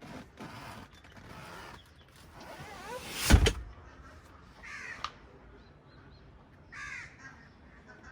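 Car trunk lid shut with a single loud thud about three seconds in, after some rustling handling noise. Two short bird calls follow.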